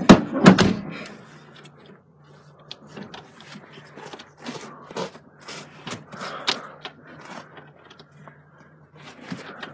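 Fumbling clicks and scrapes of a paper clip being worked in a car's ignition in place of a key, with one loud knock about half a second in and a low steady hum underneath.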